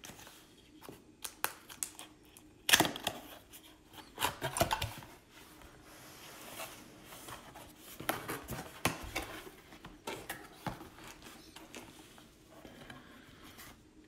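Cardboard box being opened: a utility knife slitting the packing tape, then the cardboard flaps pulled open and rustled. Scattered sharp clicks and snaps throughout, the loudest about three seconds in.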